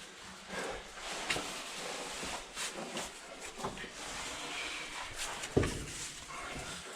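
Scuffs and scrapes of boots and hands on cave rock as cavers clamber through a low passage, with scattered knocks and a louder thump about five and a half seconds in.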